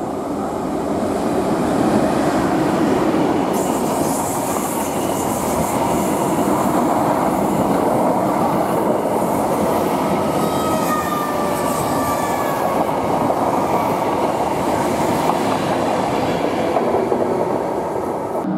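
Greater Anglia Class 90-hauled train of Mark 3 coaches passing along the platform, a steady loud rumble and clatter of steel wheels on the rails. A few faint, falling squeal tones come in about ten seconds in.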